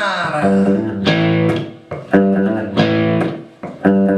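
Rock band music: strummed electric guitar chords with sharp rhythmic hits. A sung word ends just after the start, then the guitar carries on alone.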